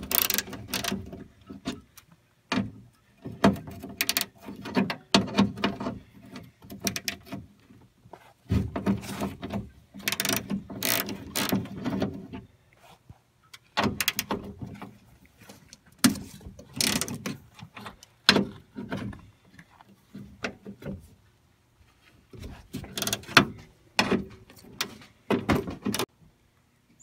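Hand ratchet and socket clicking in runs of back-and-forth strokes, with short pauses between, as bolts inside a car door shell are undone.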